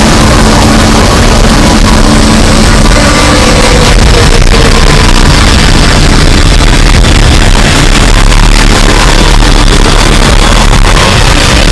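A harsh, heavily distorted cacophony made to be as annoying as possible, pinned at full loudness without letup: dense noise across the whole range, with a few steady tones underneath and a short sliding tone about four seconds in.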